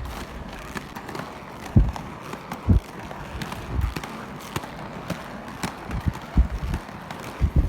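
Roller skates rolling steadily, with about five short low thuds along the way.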